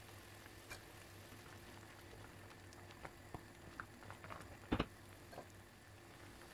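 Tangerines and peel boiling in sugar syrup in an enamelled pot, a faint bubbling crackle with small pops, while a wooden spoon stirs; a sharp double knock of the spoon against the pot about five seconds in.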